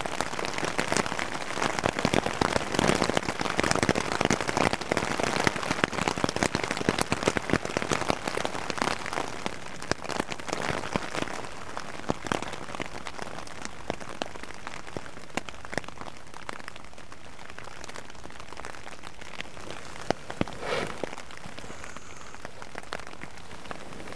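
Rain falling: many small drop impacts over a steady hiss, heavier for the first ten seconds or so and then easing to a lighter, even fall.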